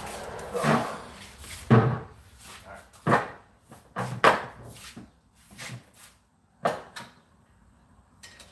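About seven irregular knocks and thumps, the loudest in the first two seconds, as a man climbs onto an upturned plastic bucket and works in an engine bay.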